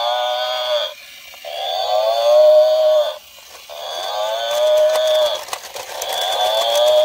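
Electric toy buffalo's built-in sound effect playing a recorded bellow from its small speaker, the same call repeated about four times with short gaps, each dropping slightly in pitch and then holding steady. From about halfway, the toy's walking gearbox adds a fast clicking as its legs move.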